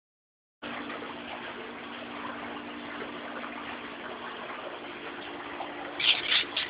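Steady background hiss with a faint low hum, starting about half a second in; a few short, sharper sounds break through near the end.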